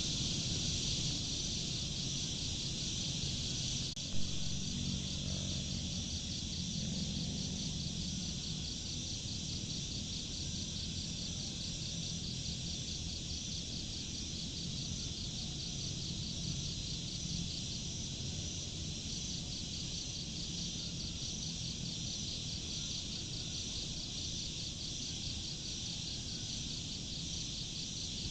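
A steady chorus of insects chirring with a fast, even pulse over a low steady rumble. One sharp click about four seconds in.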